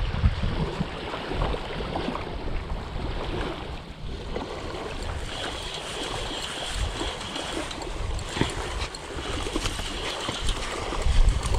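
Wind buffeting the microphone over low surf, while a spinning reel is cranked to bring in a small hooked bluefish. A faint high whine comes and goes twice midway through.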